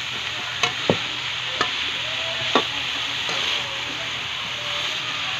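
Diced squash and chayote sizzling in a metal pan while a metal spatula stirs them, with a few sharp clinks of the spatula against the pan in the first three seconds.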